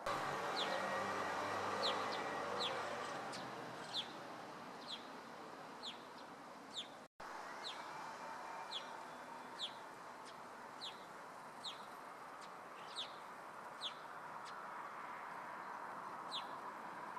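White-cheeked starlings calling: short, sharp chirps that fall in pitch, repeated roughly once a second over a steady rushing background.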